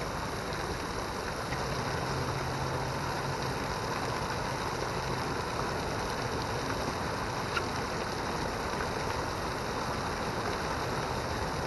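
Steady splashing of a small waterfall: water pouring in thin streams off a stone wall into a shallow pool.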